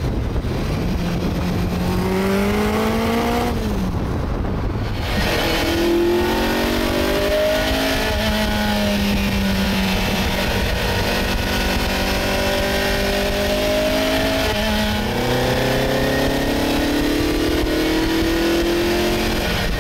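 Ferrari 308 GTB's transversely mounted, carburetted V8 through a free-flowing exhaust, accelerating hard with the revs climbing. The revs fall briefly at a gear change a few seconds in and again about three-quarters of the way through, then climb again.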